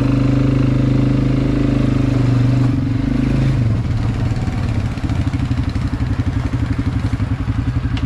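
ATV (quad bike) engine running at steady revs, then dropping off after about three and a half seconds to a lower, pulsing chug like an idle.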